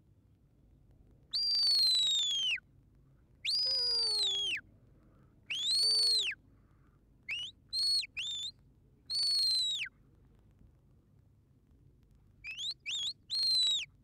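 A sheepdog handler's whistle giving commands to working dogs: a series of shrill whistled notes. They include long falling blasts, a rise-and-fall note, and groups of quick short rising chirps, two groups in all, one in the middle and a faster run near the end.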